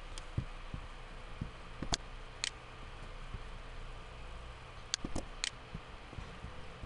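Computer mouse clicking: about six sharp single clicks spread out, three of them in quick succession about five seconds in, over a low steady hum.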